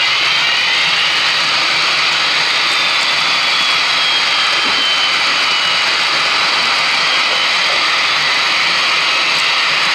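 HO scale model diesel locomotives, a CP ES44AC and a Conrail SD60I, running under their onboard sound decoders. A steady, hissy diesel-engine sound plays from their small speakers, mixed with the wheels rolling on the track. A faint high whine slides down in pitch around the middle.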